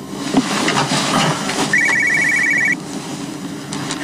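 Mobile phone ringing: one trilling electronic ring lasting about a second, beginning a little under halfway through, with soft rustling and a few clicks before it.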